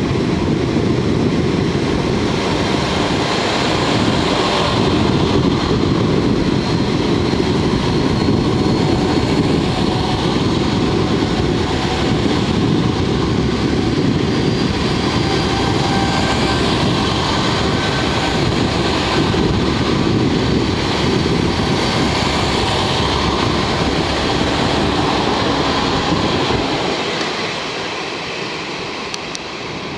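Seven-car JNR KiHa 40-series diesel multiple unit (KiHa 40 and KiHa 47 railcars) pulling away from a station and rolling past. The diesel engines run under power, mixed with the rumble of wheels on the rails. The sound drops off noticeably near the end.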